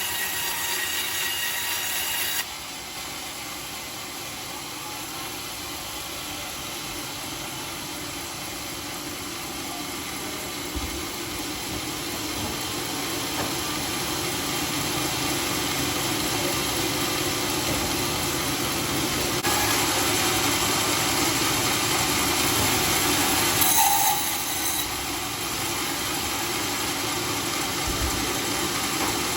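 Sawmill machine running steadily while sawing a dry teak beam into boards. Its sound drops abruptly about two seconds in, then builds up again.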